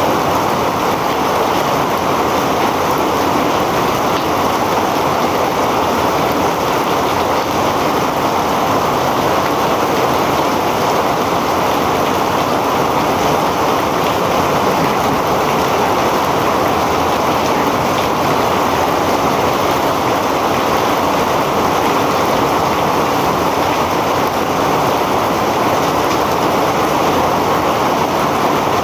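Heavy rain pouring down in a dense, steady hiss that holds even throughout.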